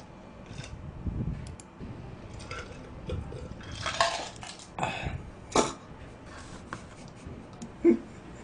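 Irregular light clinks and knocks, like tableware being handled, with sharper ones about four and five and a half seconds in and a brief louder knock near the end.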